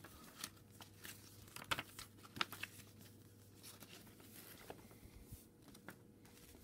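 Faint rustling and crinkling of a folded paper pamphlet being unfolded and handled, with a few sharper crackles, the strongest about two seconds in.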